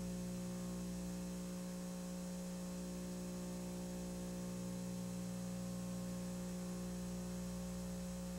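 Steady electrical hum with a faint hiss beneath it, unchanging throughout: mains hum on the audio line.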